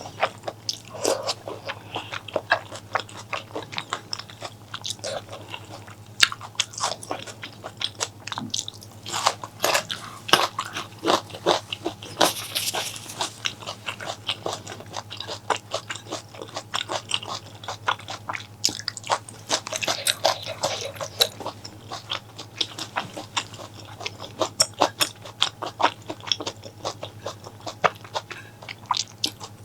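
Close-miked eating: chewing and crunching of food, with dense irregular wet clicks and crunches throughout and a short hissing slurp about twelve seconds in.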